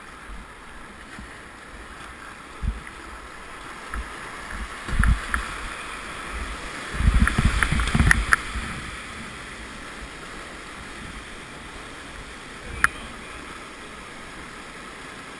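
Rushing river whitewater running steadily, with a few thumps and knocks from the kayak and paddle. The loudest cluster comes about seven to eight seconds in, and a single sharp click falls near the end.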